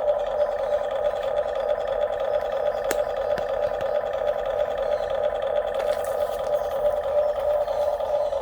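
Steady whine of a radio-controlled model's small electric motors and gearing running, with one sharp click about three seconds in.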